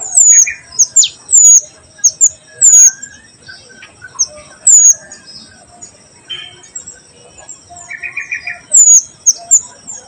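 Mantenan bird calling: sharp, loud, high whistled notes, each falling quickly in pitch, given singly or in quick pairs at irregular intervals. A steady high whine runs underneath, and a short buzzy trill comes about 8 s in.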